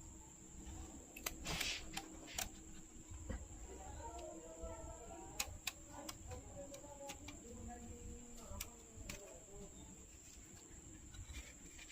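Faint, scattered clicks and taps of small phone parts being handled, with a few sharper clicks in the first couple of seconds and again about five seconds in. Faint background voices run underneath.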